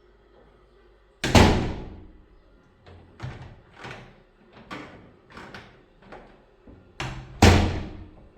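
A door slammed shut twice, about six seconds apart, with a run of lighter clicking knocks between them as the door handle and latch are worked.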